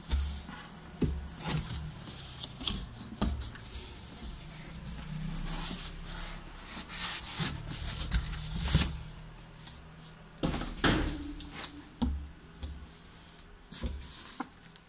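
Cardboard wheel box being opened by hand: flaps and a cardboard insert are pushed and lifted with scraping, rustling and a string of irregular knocks, then a paper leaflet is rustled as it is picked up.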